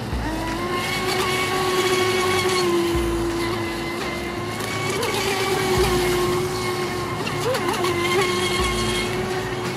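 Proboat Recoil 17-inch RC speedboat's brushless 2950Kv motor giving a steady high-pitched whine as the boat runs fast on the water. The pitch wavers briefly a few times.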